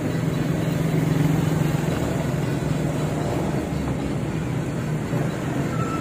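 Road traffic: trucks and motorcycles passing, their engines making a steady low rumble that swells a little about a second in.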